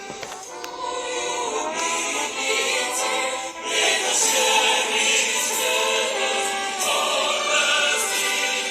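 Music: a choir singing held chords with instrumental accompaniment.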